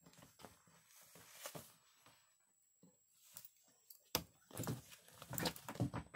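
Irregular rustling, scraping and bumping from a wriggling pet macaque and its cloth rubbing against the holder and close to the phone microphone, with a sharp knock about four seconds in and heavier bumping near the end.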